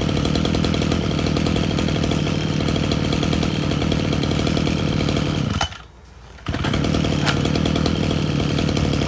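Mitsubishi TL261 26cc two-stroke brush cutter engine running steadily at idle, warmed up and running smoothly. The sound drops out abruptly for under a second about six seconds in.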